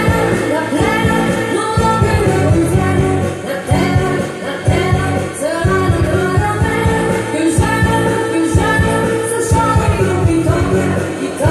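A song with singing and drums, played back over loudspeakers driven by an Onkyo Integra M-504 power amplifier and P-304 preamplifier.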